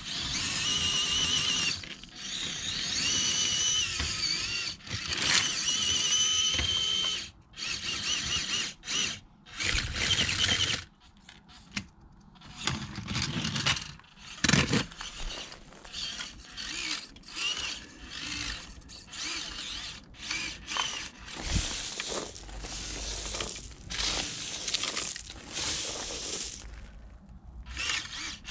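Orlandoo 1/32 Toyota Tundra micro RC crawler's tiny brushed motor and gearbox whining in stop-start bursts, the pitch rising and falling with the throttle as it crawls.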